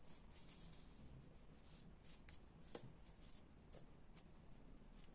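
Near silence with faint rustling as fingers push fluffy stuffing into a small crocheted piece, and a couple of soft clicks, the sharpest a little before the middle.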